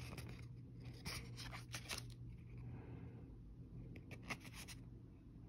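Faint paper-card handling: Yu-Gi-Oh trading cards sliding and rubbing against one another as a hand flips through a stack, with several short flicks where a card snaps past the next, over a faint steady low hum.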